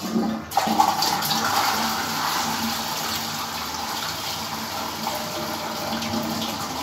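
Toilet flushing: the water rushes in suddenly about half a second in and keeps running steadily.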